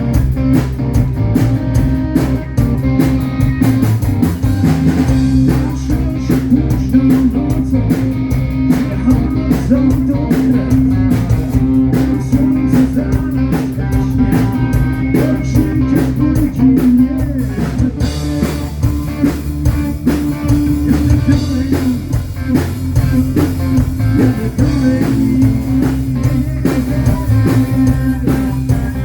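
Live rock band playing: electric guitar over bass and drum kit, in a bluesy style.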